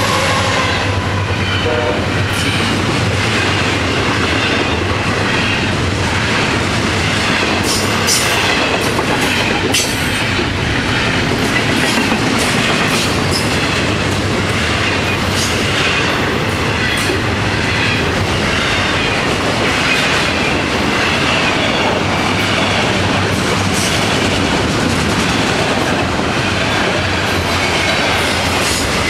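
Freight train's intermodal well cars and autorack cars rolling past, steel wheels clacking over rail joints in a steady, loud run of noise, with a few sharp clanks about eight to ten seconds in. The trailing diesel locomotive's engine drone fades out in the first second or so.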